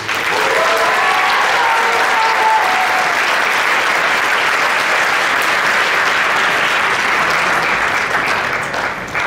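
Audience applauding, with cheering voices over the first few seconds; the applause dies down near the end.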